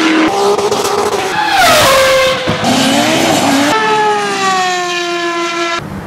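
Racing car engines at high revs in several short clips cut together, each one stopping abruptly; the pitch glides up and down, with a long, slowly falling note in the last two seconds.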